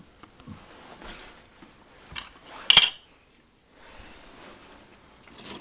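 Faint handling noise of objects being moved on a workbench, with one sharp click a little under three seconds in, then a brief moment of near silence.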